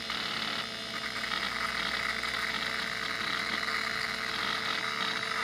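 Power Macintosh 7300 running just after power-on, its Quantum Fireball hard drive spinning and working with a steady whir and hum, as the machine boots from the drive.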